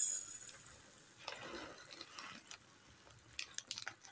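Dry sabudana (tapioca pearls) pouring from a plastic bag into a steel cup, a rushing patter loudest at the start that fades within the first second. A softer stretch of pouring follows in the middle, and a few light clicks come near the end.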